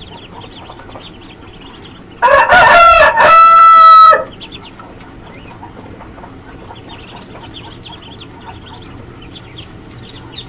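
A rooster crows once, loud, from about two seconds in for about two seconds, ending on a long held note. Throughout, a tray of newly hatched ducklings peeps softly.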